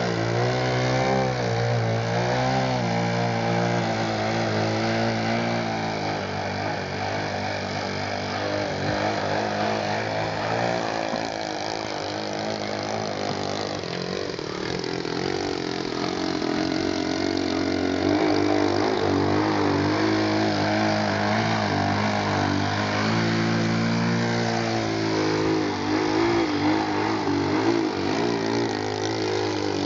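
Radio-controlled aerobatic model airplane's engine running, its pitch rising and falling with the throttle as it flies.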